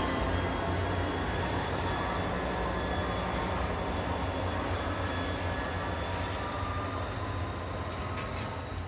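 Shore Line East commuter train pulling away, a steady rumble of running gear with a low hum and faint thin squeal from the wheels, fading gradually as it recedes.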